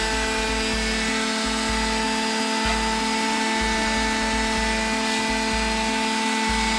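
Orbital sander running steadily on weathered wood, a constant whine, with background music playing over it.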